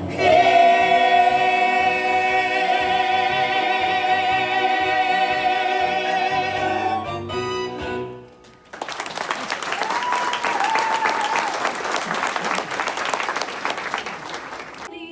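Cast singing and holding the final chord of a musical-theatre song over accompaniment; it cuts off after about seven seconds. A moment later, audience applause.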